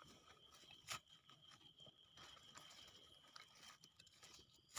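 Near silence: faint night-time forest ambience with a steady high insect tone, and one soft knock about a second in.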